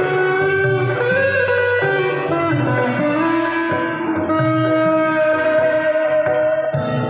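Music led by an electric guitar playing a sustained melody with bent, sliding notes over low bass notes.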